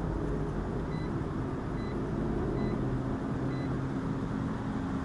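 Steady rumble of a running engine or motor, with four faint high beeps evenly spaced a little under a second apart.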